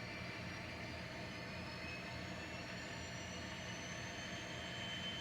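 N scale diesel locomotive's DCC sound decoder playing diesel engine sound as the engine is started and run up, with a thin whine that rises slowly in pitch from about two seconds in, over a steady low drone.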